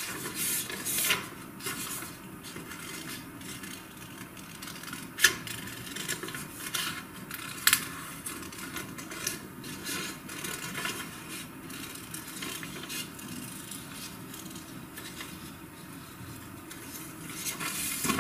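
Scissors snipping through a sheet of white paper, cutting out small circles: irregular short snips with the paper rustling as it is turned, and two sharper clicks in the middle.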